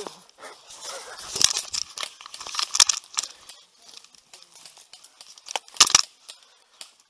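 Dry leaves and bramble stems crackling and rustling as a person pushes and tumbles through undergrowth, in a dense run from about a second in to past three seconds and one sharp burst near six seconds.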